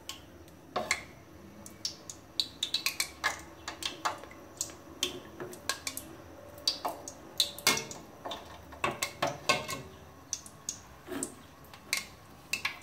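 Stainless steel slotted skimmer clinking against a metal pot of frying oil: irregular sharp clinks, some in quick runs of several.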